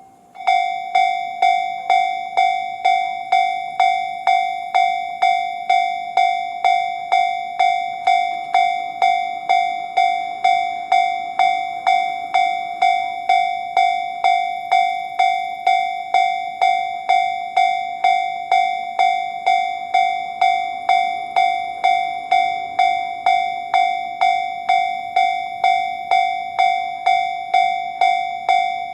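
Japanese railway level crossing's electronic warning bell sounding the JR standard alarm tone. It starts about half a second in and then rings steadily, a little under two dings a second, the signal that a train is approaching.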